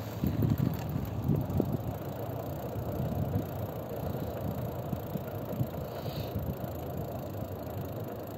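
Steady low rumble of a moving vehicle with wind noise on the microphone, with a few soft knocks in the first couple of seconds.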